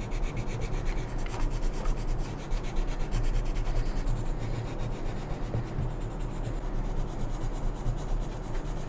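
Coloured pencil rubbing on sketchbook paper in quick back-and-forth strokes, a continuous scratchy rasp as small swatch squares are drawn and filled in with colour.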